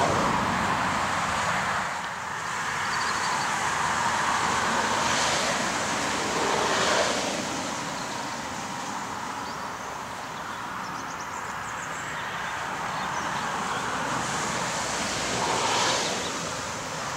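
Wind rushing over the microphone, with several short gusts buffeting it.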